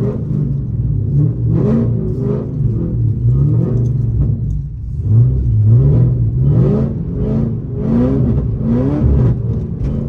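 Pontiac G8 GT's V8 engine pulling under acceleration, its pitch climbing and dropping back several times as the revs rise and fall.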